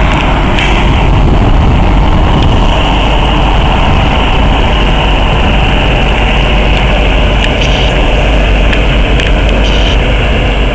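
Diesel locomotives of a Union Pacific container train under way onto a bridge: a steady, heavy engine rumble with a few faint clicks.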